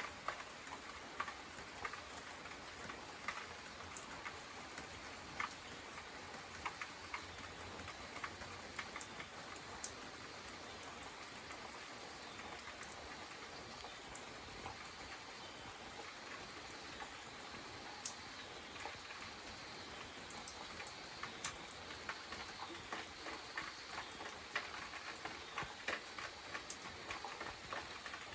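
Light summer rain falling: a steady hiss with many scattered drops ticking individually on surfaces.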